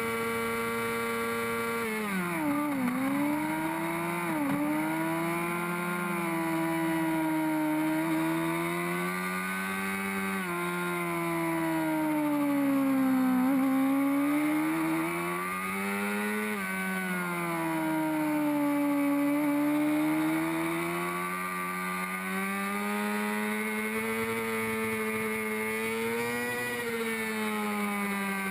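Honda CBR600RR's inline-four engine at race pace. It holds high revs, then about two seconds in the pitch falls sharply with two quick upward jumps as the rider brakes and downshifts, and after that it rises and falls in long sweeps as the bike accelerates and backs off through a run of corners.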